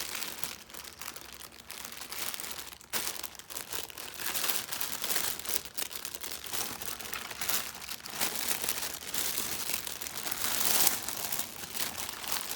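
Toy packaging being crinkled and handled in continuous irregular crackles while a toy set is unboxed.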